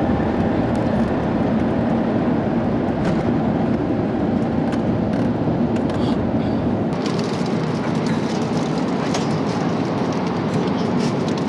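Steady cabin noise inside an Airbus A350 airliner: an even rush without clear pitch, with faint light clicks or rattles in the second half.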